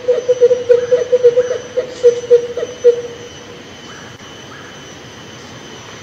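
Barbet (takur tutut) calling: a rapid run of low, evenly repeated notes, about five a second, which stops about three seconds in.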